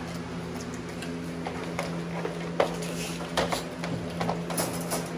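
Irregular wet crunches and sharp clicks, the loudest about two and a half seconds in, as a pit bull chews raw whole fish in its wire crate, over a steady low hum.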